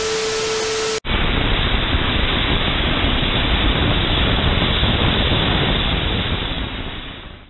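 Glitch-transition sound effect: a burst of TV-static hiss with a steady beep for about a second, cut off abruptly. It is followed by a steady rushing static noise, duller than the first hiss, that fades out near the end.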